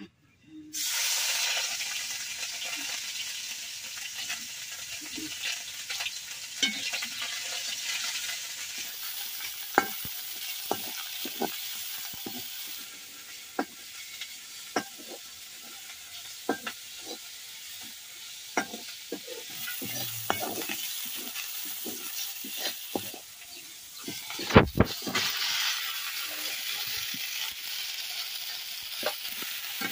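Frying in hot oil in a metal kadai: a steady sizzle that starts suddenly about a second in, with a metal spoon clicking and scraping against the pan. A loud clank comes late on, after which the sizzle is louder as chopped okra fries in the pan.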